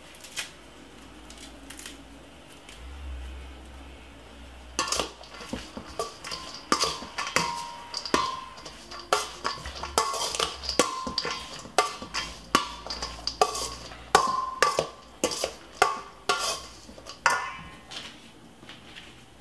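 Metal spoon clinking and scraping against a stainless steel mixing bowl as spaghetti salad is tossed. The ringing clinks come about one and a half times a second, starting about five seconds in and stopping shortly before the end.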